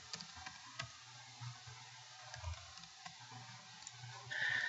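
Faint, scattered computer keyboard clicks from typing into an equation editor, with a soft rush of noise near the end.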